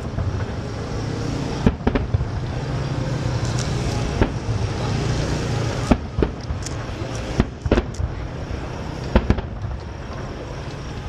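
Aerial fireworks shells bursting in a display: a string of sharp bangs, roughly one every second or so, over a continuous low rumble and crackle of the show.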